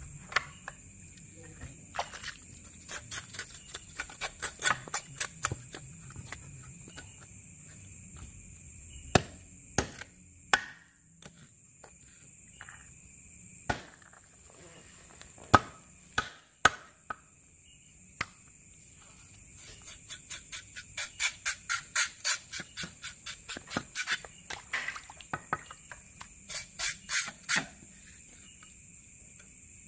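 Knife strokes scraping and knocking against a catfish and a wooden cutting board: scattered sharp knocks, then runs of quick scraping strokes about three a second in the second half. Crickets or other insects trill steadily behind.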